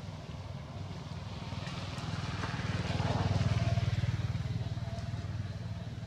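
A motor vehicle's engine passing by, a low steady hum that grows louder to a peak about three and a half seconds in and then fades.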